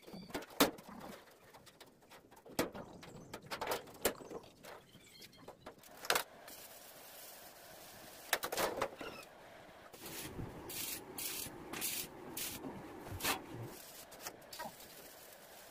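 Scattered knocks and taps on the steel plate of a boat hull, with doves cooing. A little over halfway through comes a quick run of short hissing bursts.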